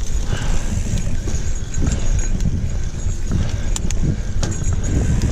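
Mountain bike rolling over a dirt singletrack: steady low wind rumble on the microphone with the tyres on the dirt, and sharp clicks and rattles from the bike over bumps.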